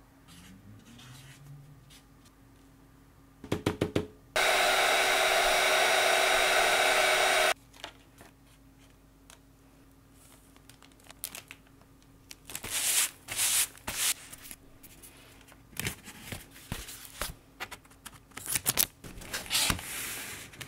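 Paper and card being handled and packed: a short clatter of clicks, then a loud, steady whirring hiss for about three seconds that starts and stops abruptly, then repeated bursts of rustling and tape pulled from a roll as the card board is taped together.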